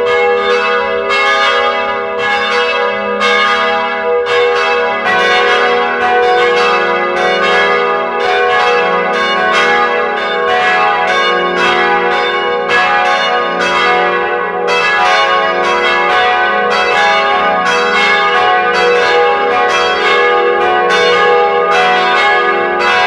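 Church bells ringing a peal: several bells struck in quick succession, about two strokes a second, their rings overlapping and sustaining.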